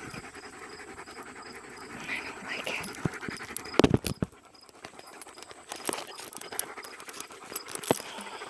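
German Shepherd panting, with a brief higher-pitched sound about two seconds in and a few sharp knocks, the loudest a cluster about four seconds in.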